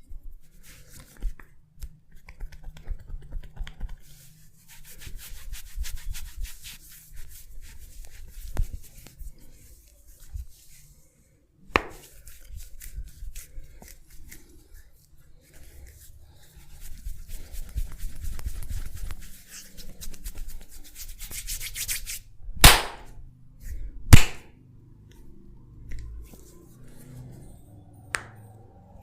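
Hands rubbing and working over skin and hair in a massage, in stretches of soft scratchy rubbing, broken by a few sharp snaps; the two loudest snaps come about a second and a half apart late on.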